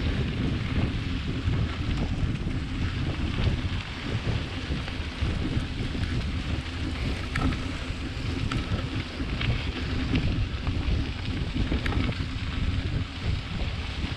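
Wind buffeting the microphone of a camera on a moving gravel bike, a steady deep rush, with rumble from the gravel road and a few faint ticks.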